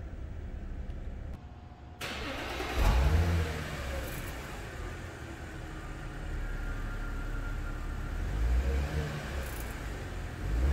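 2010 Audi A6 3.0T's supercharged V6 starting, with a brief flare in revs about three seconds in, then settling into a steady idle. It is revved up briefly twice near the end.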